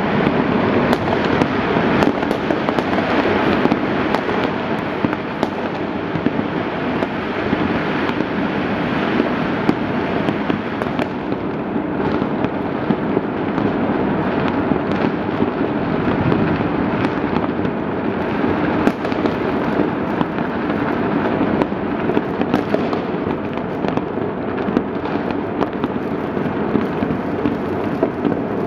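Massed fireworks and firecrackers going off all over the city at Chinese New Year: a dense, unbroken crackle of countless overlapping bangs, with sharper single pops standing out throughout.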